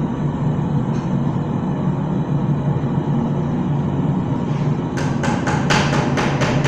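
A quick run of hammer blows on metal, about four or five a second, starting about five seconds in, over a steady low rumble.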